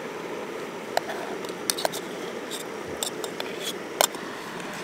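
A spoon scraping and clicking against a metal camping nesting cup as cooked rice is scooped out onto a pan: a handful of light clicks, the sharpest about four seconds in, over a steady low hiss.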